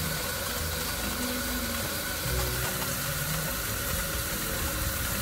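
Water spraying steadily from an overhead rain shower head in an even hiss, splashing over hair being rinsed under it.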